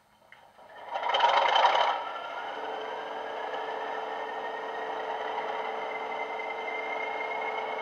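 Class 40 diesel start-up played by a DCC sound decoder through a model locomotive's tablet speaker: a loud burst as the English Electric engine fires about a second in, then a steady idle. A thin whistle climbs slowly in pitch over the idle, the turbochargers spooling up.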